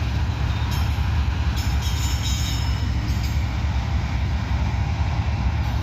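Freight cars of a manifest freight train rolling past close by, a steady heavy low rumble with a few short high-pitched sounds from the wheels.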